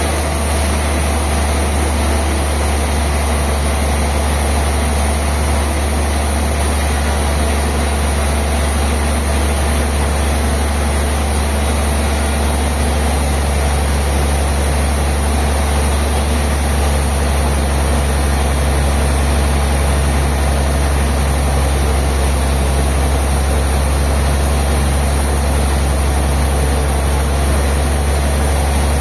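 Heavy sawmill machinery running steadily: a loud, constant low hum with a hiss over it. A second low hum joins about halfway through.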